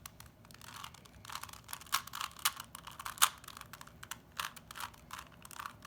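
3x3 Rubik's cube being turned by hand: a quick, irregular run of light plastic clicks and clacks, several a second, as its layers are rotated.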